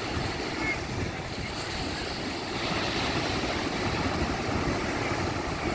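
Wind buffeting the microphone over the wash of ocean surf breaking on the beach, a steady rushing noise that grows a little brighter about halfway through.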